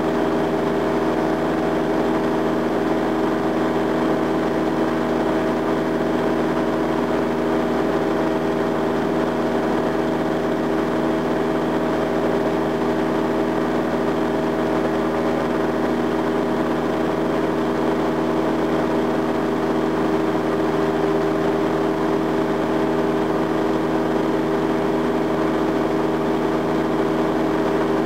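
Single-engine light aircraft's piston engine and propeller in steady cruise, heard inside the cockpit: a constant drone with several steady tones that does not change.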